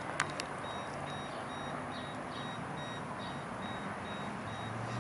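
Faint high-pitched beeping, short beeps repeating evenly about three times a second over steady background hiss, with two sharp clicks just after the start.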